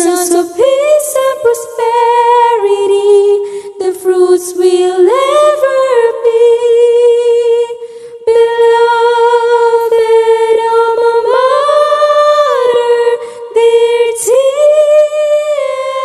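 A woman singing a hymn solo and unaccompanied, holding long notes with a slight vibrato.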